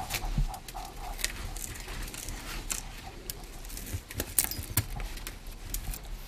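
Kitchen handling sounds while butter is spread: a block of butter rubbed over a metal baking tray and a pastry brush working melted butter onto a sheet of dough, giving light, irregular clicks and taps with soft scraping.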